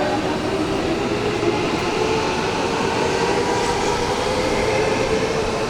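Electric train running through a station platform: a steady rumble of wheels and running gear, with a held whine over it.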